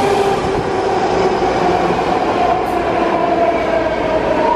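BART train pulling in beside the platform: a loud, steady rumble of wheels on rail with a motor whine that slowly falls in pitch as the train slows.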